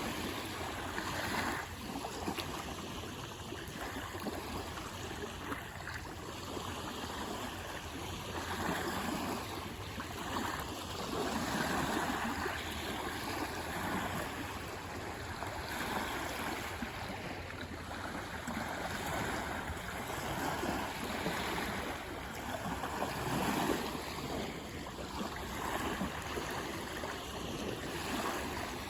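Lake Superior waves washing in against the shore, a continuous rushing wash that swells and ebbs every few seconds.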